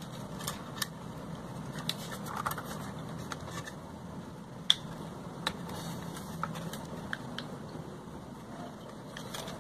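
Light, scattered clicks and taps of plastic drone parts (arm, motor and propeller) being handled and turned over in the hands, with a faint steady low hum underneath.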